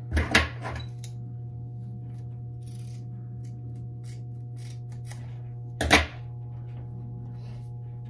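Kevlar shears knocking on a workbench as they are picked up just after the start, a few faint snips as they trim the Kevlar yarn from a fiber-optic drop cable, and another sharp knock about six seconds in as they are set down. A steady low hum runs underneath.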